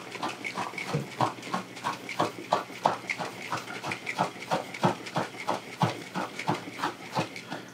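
Apple juice sloshing in a small carboy fermenter shaken back and forth, about three sloshes a second. The shaking aerates the juice for the yeast before fermentation.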